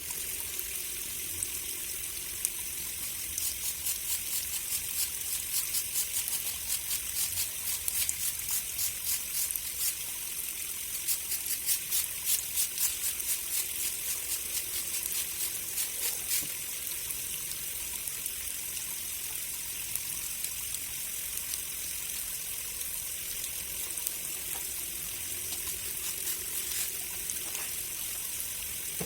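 Water running and splashing steadily, with a quick series of short strokes through the first half.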